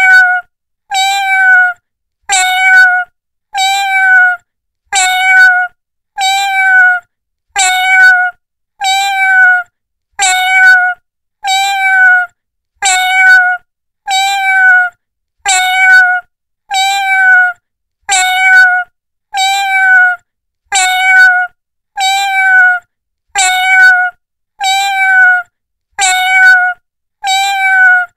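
A domestic cat's meow repeated over and over, about once a second with short gaps of silence between, each call nearly identical to the last, like one recording played in a loop.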